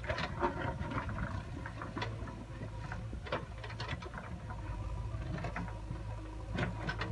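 Diesel engine of a JCB 3DX backhoe loader running steadily while its bucket digs, with scattered clicks and scrapes of stones and soil against the bucket.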